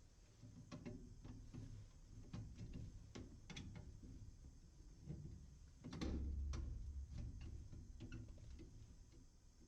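Faint, irregular clicks and taps of hand tools and small metal parts being handled on a furnace, with one louder knock about six seconds in.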